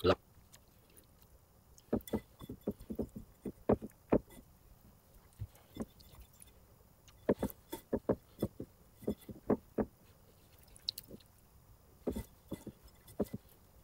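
Hands breading rolled toast, dipping it in beaten egg and pressing it into a bowl of coarse homemade breadcrumbs: short crunchy crackles and soft taps that come in clusters, with quiet gaps between.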